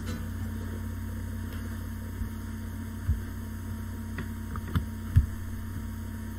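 Steady low background hum, broken by three short low thumps about three, five and a little after five seconds in; the last thump is the loudest.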